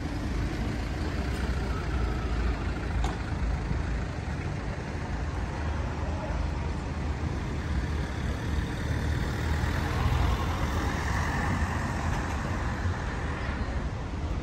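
Town-centre street ambience: steady road traffic with a low rumble and cars driving past, one passing louder about ten seconds in.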